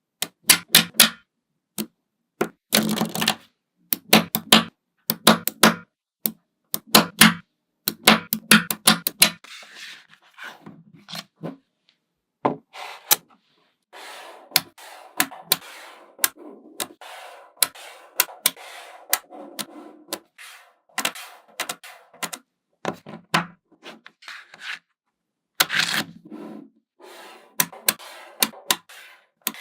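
Small magnetic balls clicking and snapping together. Quick runs of sharp clicks fill the first third, then a quieter, denser clatter and scraping with scattered clicks.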